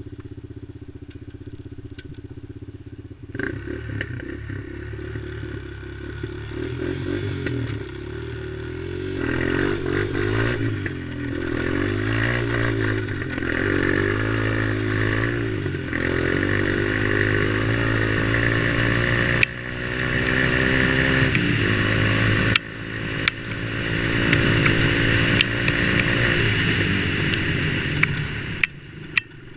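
Sport quad (ATV) engine idling, then throttled up about three seconds in and ridden across sand, its note rising and holding high with a couple of brief dips before easing back off near the end.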